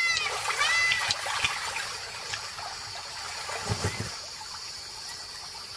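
Waterhole ambience: a wading bird gives two short arched calls near the start, over the steady trickle of shallow water, with a soft low thud about four seconds in.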